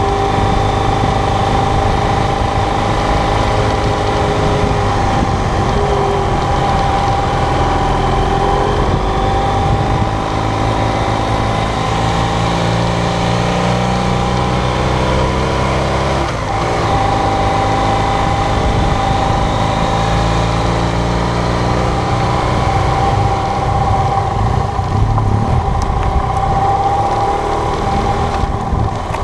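BMW GS adventure motorcycle's twin-cylinder engine running under way, its note rising and falling with throttle and gear changes, over steady wind and road noise.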